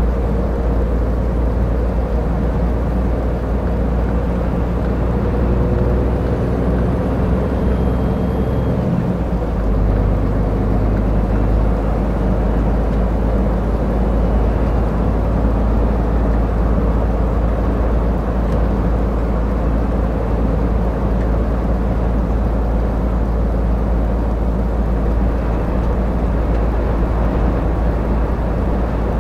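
Scania R450 truck's 13-litre straight-six diesel running at highway speed under load, heard from inside the cab as a steady low drone over tyre and road noise. The engine note changes about nine seconds in.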